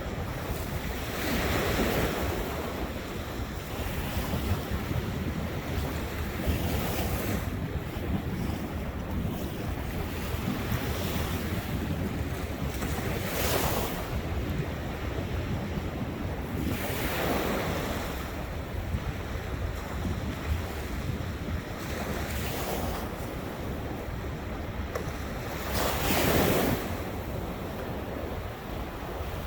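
Ocean surf: waves breaking and washing in every few seconds over a constant low rumble, with wind rumbling on the microphone. The loudest wave breaks near the end.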